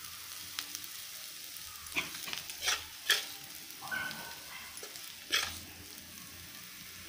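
A metal spoon scrapes and knocks against a non-stick kadai as cooked capsicum bhurji is scooped into a bowl. There are several sharp scrapes and clinks, strongest near the middle, over a faint steady sizzle from the pan.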